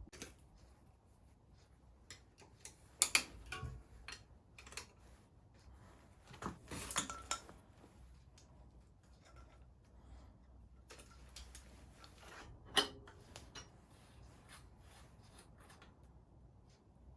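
Scattered light metallic clicks and clinks of small tools or parts being handled, with a few louder clinks about three seconds in, around seven seconds and near thirteen seconds.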